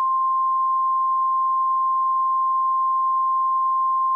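Emergency Alert System attention signal: a single steady tone near 1 kHz, held unbroken, that announces an alert message.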